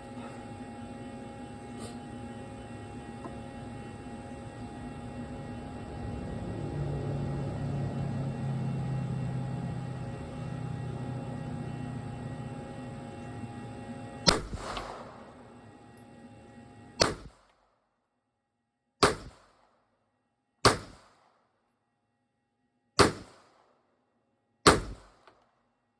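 Six single shots from a MAC-9 DS Comp 9mm pistol, fired slowly about two seconds apart in the second half, each a sharp crack that cuts off quickly. Before the shots, a steady hum with a low rumble swelling in the middle.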